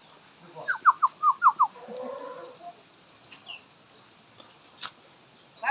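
A bird calling: a quick run of about six short whistled notes, each sliding down in pitch, followed by a lower, longer note.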